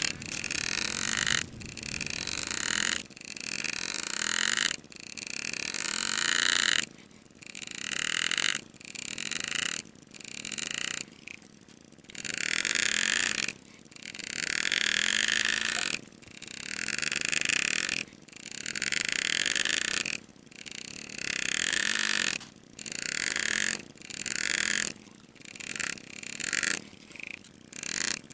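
Graver cutting scrollwork into a sterling silver ring: about twenty separate cuts of one to two seconds each with short pauses between. Each cut grows louder as it goes, and the cuts get shorter near the end.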